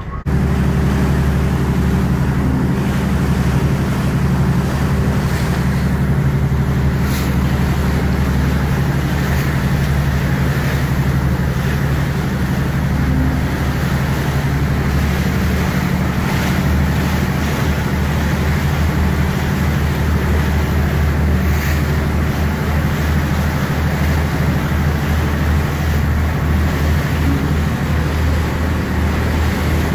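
Passenger ferry's engine running with a steady low hum, mixed with the rush of water along the hull and wind noise.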